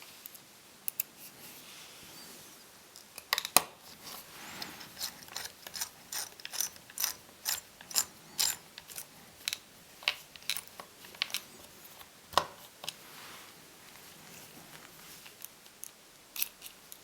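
Small clicks and ticks of hand tools and laptop parts being worked on: an irregular run of sharp clicks, a few a second, busiest from about three to thirteen seconds in.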